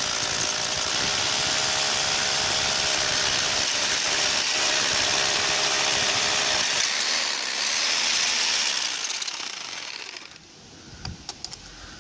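Hammer drill boring a 12 mm hole into brickwork, opening out a smaller pilot hole already drilled. It runs steadily with a motor whine under the hammering noise and stops about ten seconds in, followed by a few light knocks.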